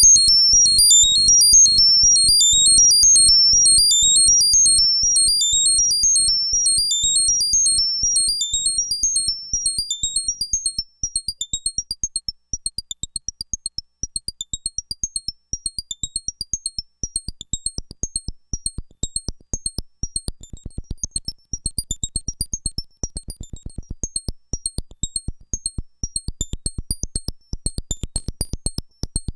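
Arturia MicroBrute analog synthesizer running a sequence in its tap-button 'secret' mode, which makes it play very high. The result is a fast, twittering chiptune-like pattern of short notes. The low part starts dense and thins out after about ten seconds into a steady train of sharp clicks.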